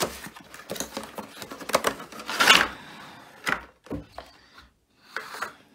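Cardboard box being pulled open by hand: a run of rustles, scrapes and knocks, the loudest about two and a half seconds in. Then a clear plastic packaging insert crinkles and clicks as it is handled over a ceramic bowl.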